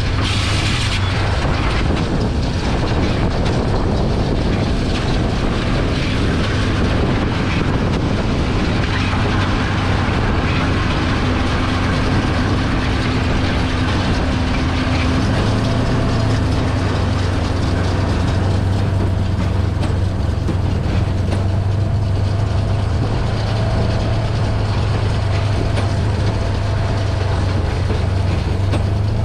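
Farm tractor running steadily, a deep even hum with mechanical noise over it.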